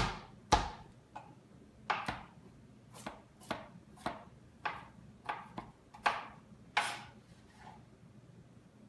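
Garlic cloves being smashed in a kitchen: a string of about a dozen sharp knocks, roughly two a second, stopping shortly before the end.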